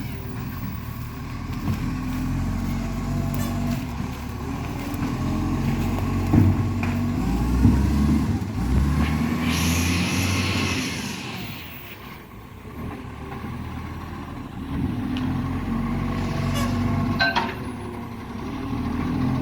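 Iveco ACCO garbage truck's diesel engine running and working up and down in pitch, the truck carrying an exhaust leak. A burst of air hiss, like an air-brake release, comes about ten seconds in, followed by a few sharp clicks later on.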